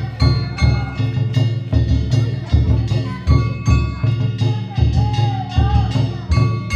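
Danjiri bayashi: a large taiko drum struck in a steady beat, with clanging metal hand gongs (kane) ringing over it.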